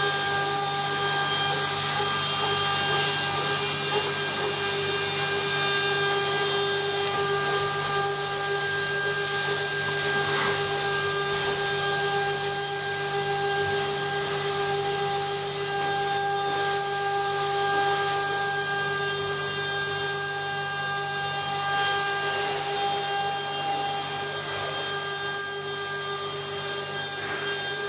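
CNC wood-carving router running steadily and cutting wood, a continuous machine whine over a hiss of cutting.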